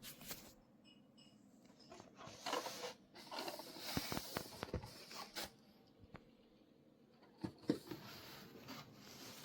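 Faint handling noises: scattered soft clicks and short rustles, in a cluster through the middle and a brief knock near the end.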